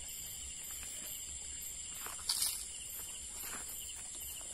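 Steady high-pitched chorus of night insects such as crickets, with one brief click or rustle a little over two seconds in.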